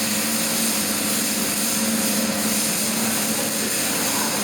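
Welding in progress: a steady, even hiss with a constant low hum underneath.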